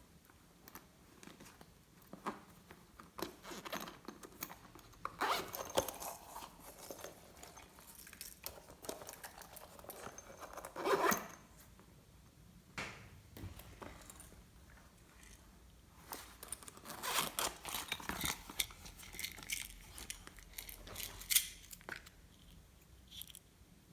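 Glossy slime being worked by hand, with sticky clicking and crackling as it is pressed, stretched and pulled apart. The clicks come in three busy stretches with quieter gaps between them.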